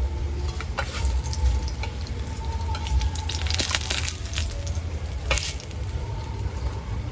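Cooking over a wood fire: irregular crackling and snapping with a sizzle, over a steady low rumble.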